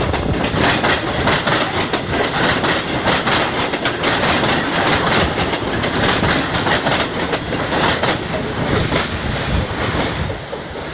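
Train cars rolling past, loud, their wheels clattering over the rail joints in a rapid clickety-clack, beginning to fade about ten seconds in.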